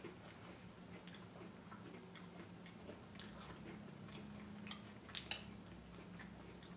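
Faint chewing and crunching of a matcha Kit Kat wafer, with a few sharper crunches about five seconds in, over a low steady room hum.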